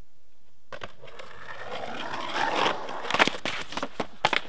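Skateboard wheels rolling down a concrete bank, the rolling growing louder. About three seconds in it breaks into a run of sharp clacks and thuds as the skater slams onto the street and the board clatters away.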